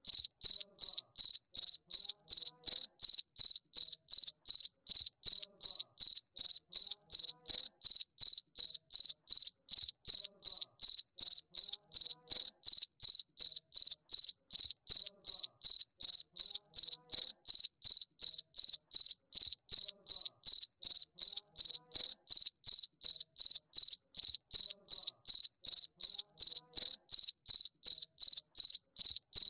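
Steady insect chirping, cricket-like: a high pitched chirp repeated in an even, fast rhythm without a break.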